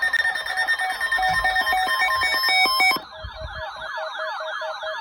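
Several phones sounding the emergency alert tone for a snow squall warning at once: a steady high tone, alternating two-pitch beeps and rising-and-falling warbles layered together. About three seconds in, part of the sound cuts off suddenly, leaving a quicker warble over evenly pulsed beeps.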